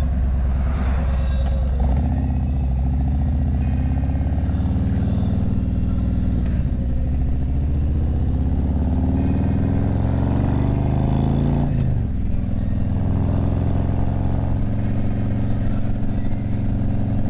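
Harley-Davidson V-twin motorcycle engine running under way. It pulls steadily, then its pitch climbs as it accelerates and drops sharply at a gear change about twelve seconds in.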